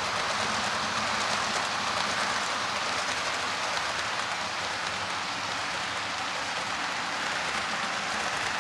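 HO-scale model freight cars rolling along the track: a steady hissing rattle of small metal wheels on the rails that holds an even level throughout.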